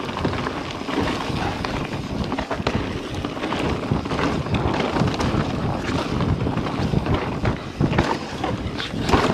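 Mountain bike descending a loose dirt singletrack at speed: wind rushing over the camera microphone, tyres crunching on the dirt, and frequent short knocks and rattles from the bike over bumps.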